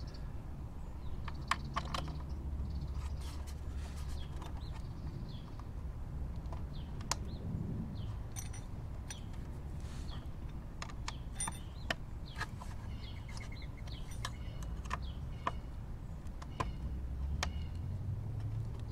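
Small metallic clicks and taps, scattered and irregular, as a hex key works the bolts of a motorcycle's lower engine guard, over a steady low hum.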